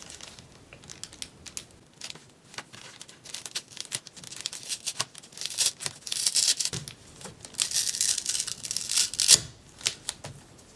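A small paper sticker being peeled and partly ripped off a paper note card: scratchy tearing and rustling in short spurts with small clicks, loudest in the second half.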